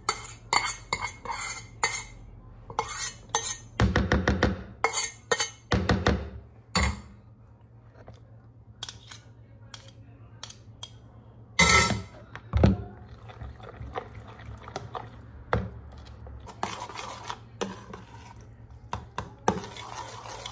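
Stainless steel saucepan scraped and knocked with a silicone spatula as pasta is scooped out, with a metal spoon clinking on a plate. A run of loud knocks comes about four seconds in, and two sharp knocks about twelve seconds in.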